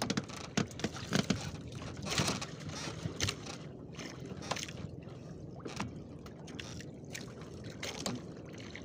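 Sea water sloshing and lapping against the hull of a small outrigger boat, with irregular knocks and splashes scattered throughout.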